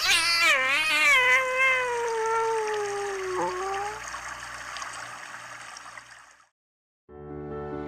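A kitten meowing: one long, drawn-out cry that wavers and then slowly falls in pitch, over a steady trickle of running water. Soft music begins near the end.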